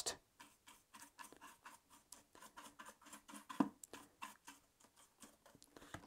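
Faint, irregular small clicks and taps of the plastic filter housing of a Shark cordless stick vacuum being turned over in the hands, with one slightly louder knock about halfway through.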